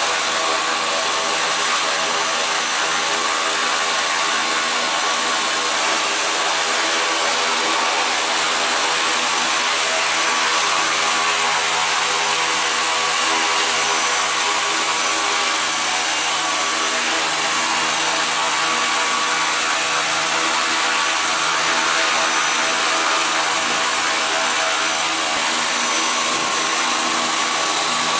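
700-size electric radio-controlled scale helicopter hovering: a steady whine of its electric motor and drive gears over the rush of the spinning rotor blades, holding an even pitch.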